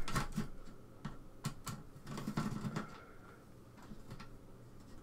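Scattered light clicks and taps of a hand screwdriver working screws out of an Amstrad PCW 9256's plastic case, with a soft rustle of cables being handled about halfway through; quieter toward the end.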